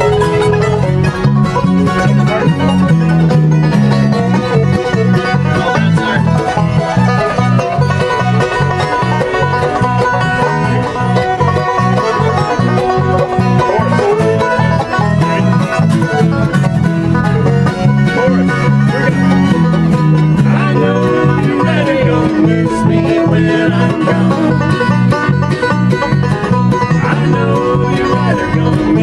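Bluegrass band playing an upbeat tune, banjo picking to the fore over guitar, with a steady, quick beat.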